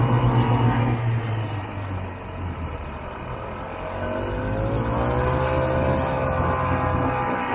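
Vintage Ski-Doo Olympic snowmobile's two-stroke engine running under throttle through deep snow. It eases off about a second in, then picks up again around four seconds in, its pitch rising and then falling.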